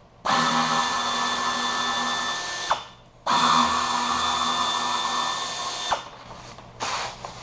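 A handheld power tool running in two bursts of about two and a half seconds each, its whine dropping in pitch as it stops at the end of each burst.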